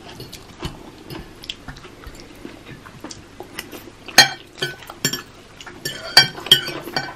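Close-up eating sounds: soft chewing of spaghetti and meatballs, with scattered sharp clinks of cutlery against the plate, the loudest about four seconds in and a cluster around six seconds.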